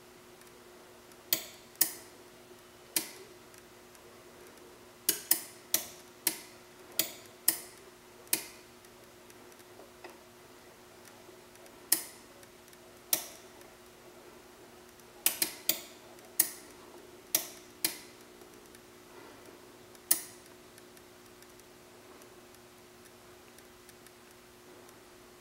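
About twenty sharp clicks at irregular intervals, some in quick runs of two or three, each with a short ringing tail: the switching of the ferrofluid sculpture's electromagnet on and off. A faint steady hum lies underneath, and the clicks stop about twenty seconds in.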